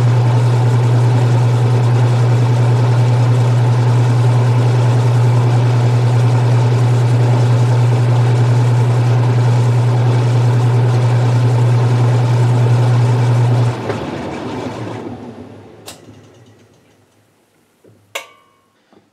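Restored 1978 Maytag LA806 top-load washer running with a steady, loud low hum until about 14 seconds in, when the motor shuts off and the machine winds down to quiet over the next few seconds, as at the end of the final spin. A sharp click follows, then a couple of small knocks near the end.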